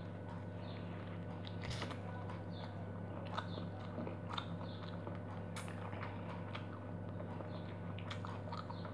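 A girl biting into a raw lemon wedge and chewing the sour pulp, with scattered small mouth clicks, over a steady low hum.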